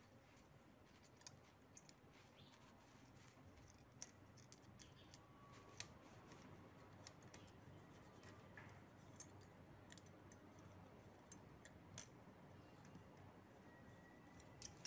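Faint, scattered metallic clicks and scrapes of a thin steel feeler gauge blade being worked in and out of a valve clearance gap, over a low background hiss. The 0.10 mm blade slides in, a 'go' fit.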